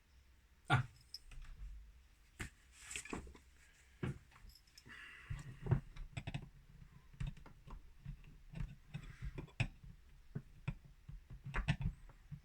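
Irregular clicks, taps and light clatter of small metal lock-picking tools and lock parts being handled and set down on a table, with a brief rustle about five seconds in.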